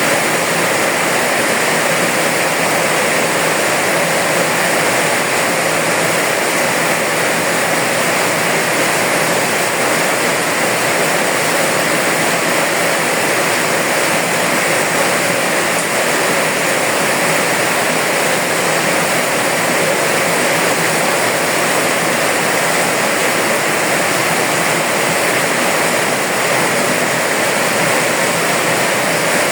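Steady rain, a dense even hiss with no separate drops, thunder or other events standing out.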